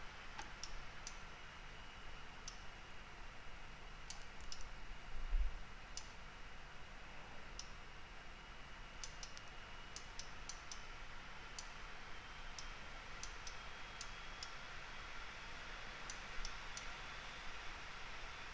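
Computer mouse clicking: irregular single clicks and quick runs of clicks over a faint steady hiss and hum, with one low thump about five seconds in.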